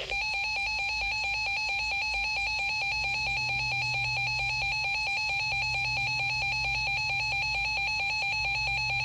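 Emergency Alert System attention signal: a steady, unbroken electronic alarm tone that follows the alert's data burst and comes before a severe thunderstorm warning is read.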